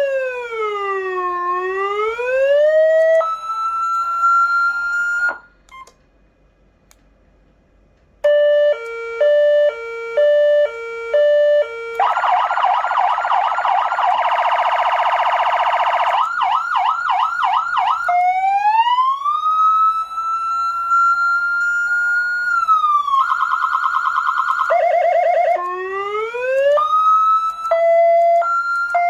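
PA3000 400-watt electronic siren amplifier sounding through its speaker, switching between tones: a slow wail, a high-low two-tone, rapid warble and yelp patterns, and a long rising and falling wail. It stops for about three seconds early on and then resumes.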